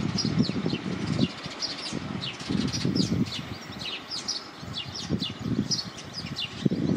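Small birds chirping over and over, short quick falling chirps, over an irregular gusty low rumble that is strongest in the first second or so and comes back in bursts.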